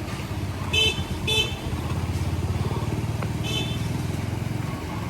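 A motorcycle engine running close by with a steady low throb, and three short, high-pitched horn beeps, two about a second in and one more later.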